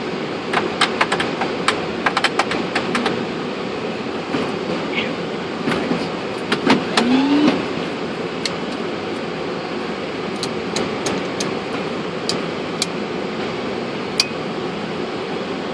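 Boeing 747-400 flight deck during the rollout and taxi after landing: a steady rush of cockpit noise with irregular sharp clicks, bunched in the first few seconds and scattered again later, and a brief rising tone about seven seconds in.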